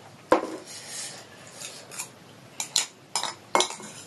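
Cutlery clinking against dishes in a series of sharp knocks, the loudest about a third of a second in and a cluster near the end.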